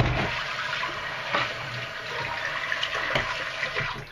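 Kitchen mixer tap running into a stainless-steel sink while hands are rinsed under the stream, with a few splashes; the water stops near the end.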